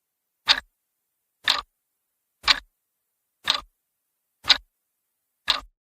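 Clock ticking sound effect counting down the thinking time: six sharp ticks, one per second.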